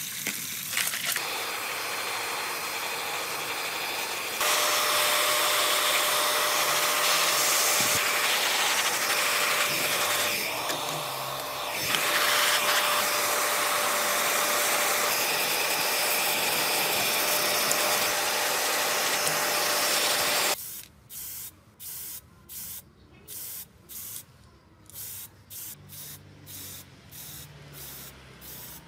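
A hair dryer blowing steadily with a thin whine, stepping up in loudness a few seconds in. From about two-thirds of the way through, an aerosol spray-paint can gives short hisses, about two a second.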